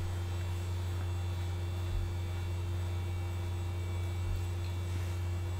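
Steady low electrical hum with a few faint, thin steady tones above it, unchanging throughout.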